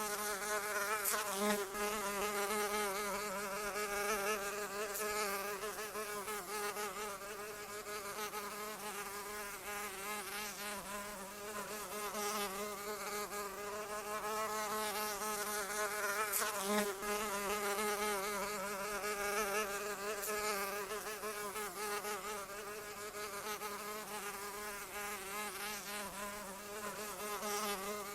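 Flying insect's wings buzzing in a continuous hum whose pitch wavers slightly, with a couple of brief sharper flicks.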